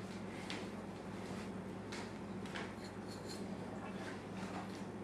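Chef's knife scoring the fat of a bone-in ham on a wooden cutting board: faint short scraping cuts, one every half second to second, over a steady low hum.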